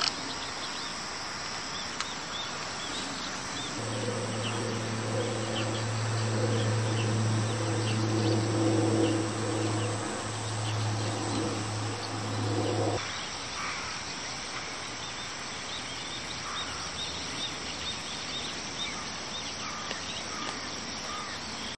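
Outdoor natural ambience full of short, repeated high chirps, with a steady low hum from about four seconds in that cuts off suddenly at about thirteen seconds.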